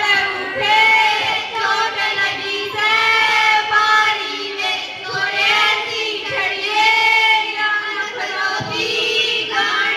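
High female voices singing a Haryanvi folk song together in long, held phrases.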